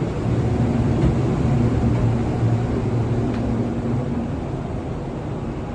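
Passenger lift running: a steady low hum from its drive machinery, with a fainter higher tone above it.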